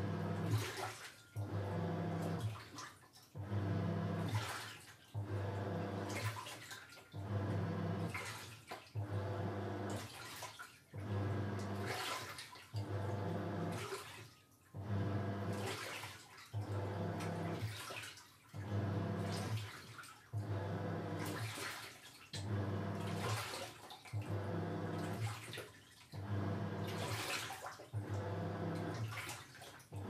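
Toshiba Star Crystal Drum 5 kg top-loading washing machine agitating its load in the rinse cycle. The motor hums in short strokes, reversing about every second and a half to two seconds with a brief pause between strokes, while the water sloshes in the tub.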